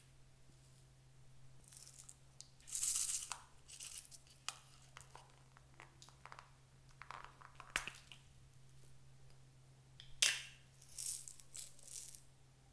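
Small plastic container and loose plastic sequins handled by hand: scattered rustles and crinkles, several sharp plastic clicks as the container is worked open, and sequins rattling into a palm near the end.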